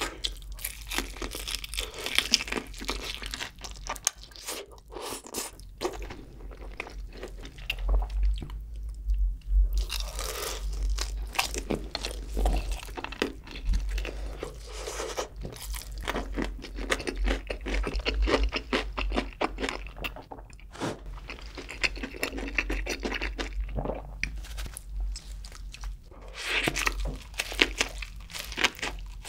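Close-miked crunching and chewing of crispy fried chicken coated in cheese sauce: dense, crackly crunches that come in louder clusters as each mouthful is broken down. Near the end comes a bite into a soft double cheeseburger.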